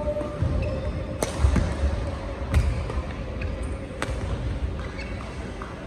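Badminton rally: three sharp cracks of rackets hitting the shuttlecock, about a second and a quarter apart, with low thuds of players' feet on the court mat.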